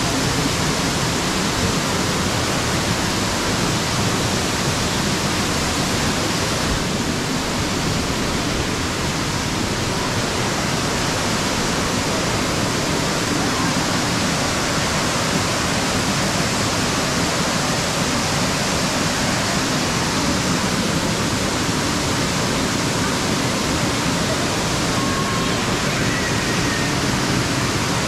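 A tall waterfall heard up close, its curtain of water pouring onto rocks in a steady, loud, unbroken rush.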